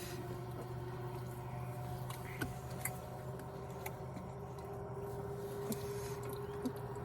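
Faint gulping of soda being chugged, a few soft clicks and squishes scattered through, over a steady low hum.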